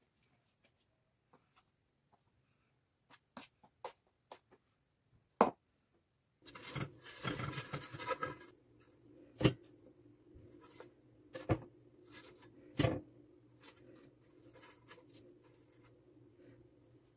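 Light taps of hands shaping dough on a plastic cutting board, with one sharp knock about five seconds in. Then a cotton steamer cloth rustles against a stainless steel pot, followed by a steady low hum and several sharp knocks as dough pouches are set into the steamer.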